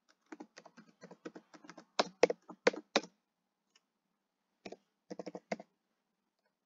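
Computer keyboard typing: a quick run of keystrokes for about three seconds, the last few strokes loudest, then a pause and a short cluster of keystrokes later on.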